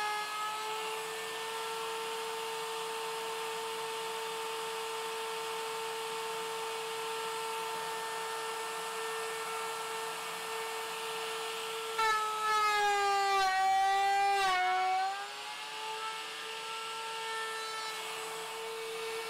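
Router in a router table running with a steady high whine as a dovetail bit finishes a dovetail slot. About twelve seconds in it gets louder for some three seconds and its pitch sags under the cut, then recovers.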